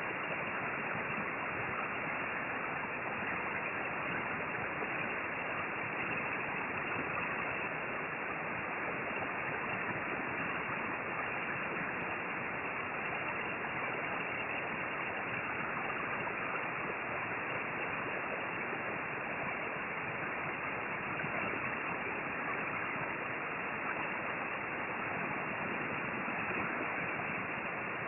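Steady rush of air from a hot air rework station blowing onto a circuit board, its airflow set a little too high.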